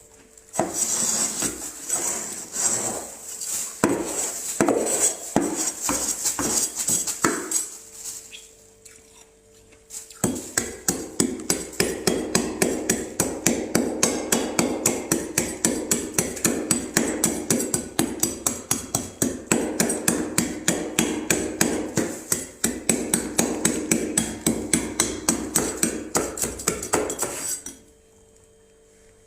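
Frost being scraped off the inside of a freezer: a few seconds of irregular scraping, a short pause, then a long run of quick, even scraping strokes at about four a second.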